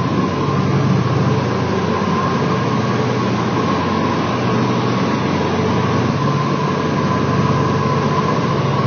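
Steady drone of a 1955-built cargo airplane's engines in flight, heard inside the cockpit, with a thin steady hum riding above the drone.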